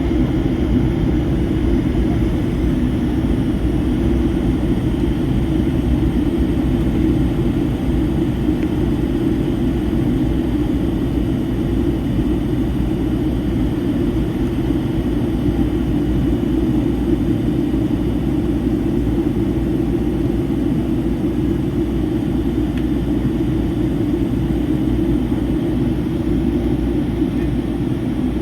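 Steady cabin drone inside a Boeing 757-300 airliner in flight: its Rolls-Royce RB211 engines and the airflow heard from a window seat as a low, even rumble that doesn't change.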